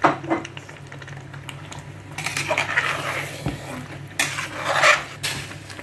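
A spoon clinking and scraping against a cooking pot as the chicken and potato curry masala is stirred and sautéed: a sharp clink at the start, then two longer stretches of scraping and a click near the end.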